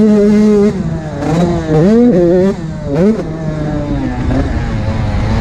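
Motocross dirt bike engine at high revs, held steady for under a second, then chopped off and revved back up in two quick rises, settling to lower, uneven revs near the end.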